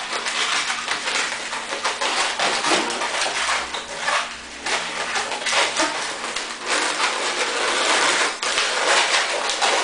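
White latex modelling balloon being twisted into bubbles by hand, the rubber rubbing and squeaking without a break.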